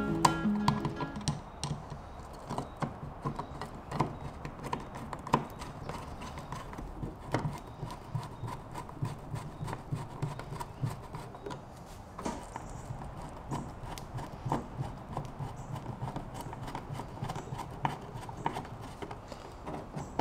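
Irregular small clicks and taps of machine screws being set by hand and turned with a screwdriver through a clear polycarbonate plate into the boat's well nuts. Guitar music fades out in the first second.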